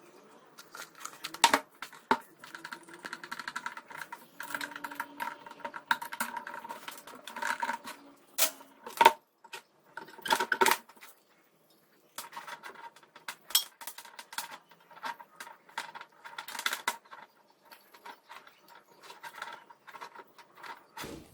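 Irregular clicks and light clattering of small hard objects being handled, with a faint steady tone underneath, pausing briefly about halfway through.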